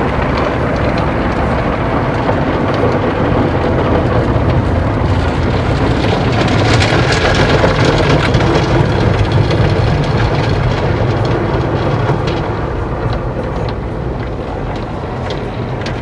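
Automatic car wash heard from inside the car: a loud, steady rush of water spray and brushes against the body and windows. It swells and gets brighter about six seconds in, then eases off after about twelve seconds.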